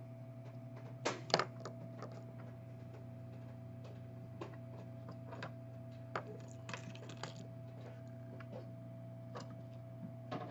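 Scattered light clicks and taps of small repair tools being handled on a bench, with two sharper clicks about a second in, over a steady low electrical hum.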